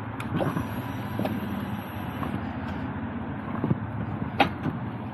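Motorcycle engine idling steadily, with a few short clicks over it, the sharpest about four seconds in.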